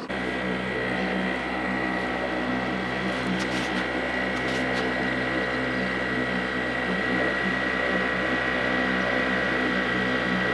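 Small petrol outboard motor running steadily, driving an inflatable boat under way: an even engine drone with a thin, steady high whine over it.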